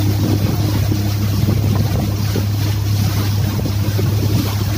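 Motorboat engine running at a steady pitch, under a rush of wind and water.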